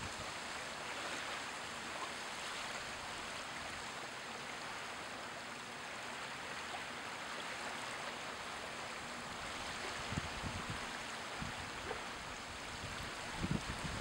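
Small low-tide wavelets washing and lapping over wet sand: a steady, even wash of water, with a few brief low thumps about ten seconds in and again near the end.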